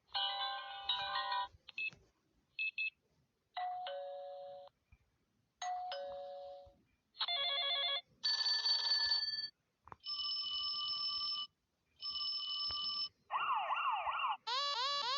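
A run of short electronic bell and ringtone sound effects from a video editor's library, played one after another with brief pauses. They include two-note doorbell chimes, quickly repeating phone-style rings and steady electronic tones, ending with a warbling alarm tone and then quickly repeating rising siren-like sweeps.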